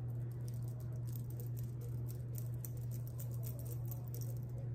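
Soft, quick, irregular strokes of a fluffy makeup brush's bristles brushing foundation across the cheek, over a steady low hum.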